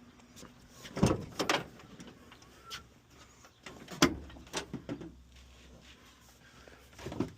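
A few sharp knocks and clatters, like objects being handled or a door or panel being moved, loudest about a second in and again about four seconds in.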